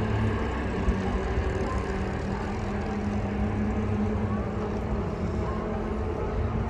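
A steady engine drone.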